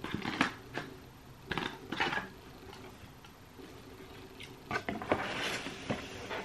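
Packaging and parts of a Philips Hue kit being handled: clicks and rustles in three short bursts, the last and longest near the end.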